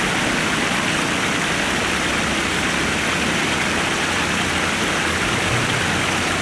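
Steady, rather noisy rush of flowing river water.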